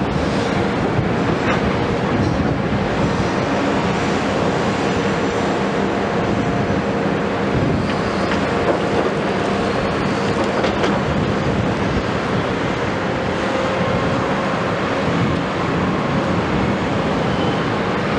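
CAT 329E and Hitachi 250LCN tracked excavators working together, diesel engines running steadily under load while their buckets dig and dump gravel and earth, with a few short knocks through the run.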